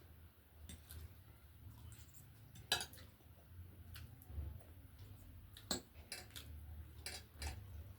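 Faint clinks and taps of utensils against dishes while noodles are served out, with a few sharp clicks, the loudest about three seconds in and again near six seconds, over a low steady hum.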